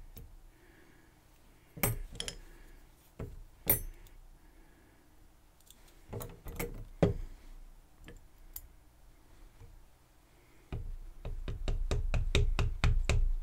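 Small metal lock-core parts (pins, springs and tools) clicking and clinking as they are handled on a pinning tray: a few separate clicks, then near the end a quick run of clicks and handling knocks.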